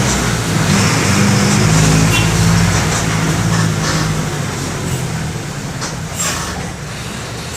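Mercedes-Benz OM-924 LA four-cylinder inline turbodiesel of an OF-1722M bus running, a steady low drone that eases off and grows quieter through the second half. A few short hisses come near the end.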